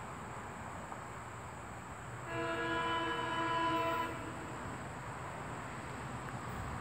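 Horn of an approaching SEPTA Silverliner IV commuter train, a Leslie RS-3M three-chime horn, sounded in one steady chord blast of just under two seconds, starting a little over two seconds in, over faint steady background noise.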